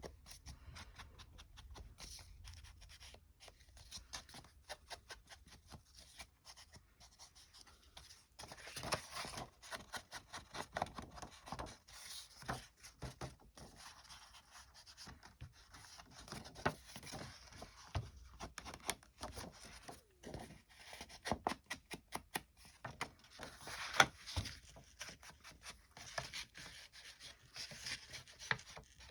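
Ink being rubbed and dabbed along the edges of a paper notebook cover to age it: a fast run of small scratchy strokes and soft taps, busier and louder after about eight seconds, with one sharp tap about two-thirds of the way through.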